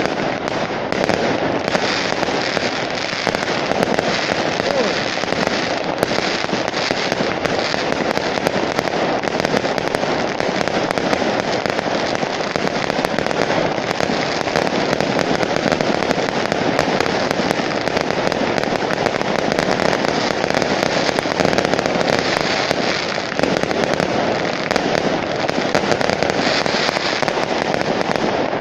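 Aerial fireworks going off in a dense, unbroken barrage of pops and crackling.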